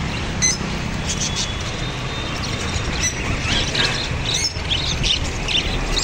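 Caged lovebirds chirping and squawking in many short, high calls, over a steady low rumble of street traffic.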